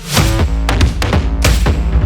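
Background music with a heavy drum beat and bass.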